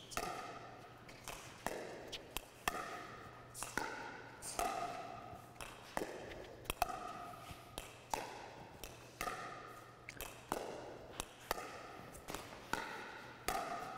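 Pickleball dinks: hard paddles striking a plastic pickleball and the ball bouncing on the court, a steady run of sharp hollow pops, about one or two a second, each with a short ringing tail.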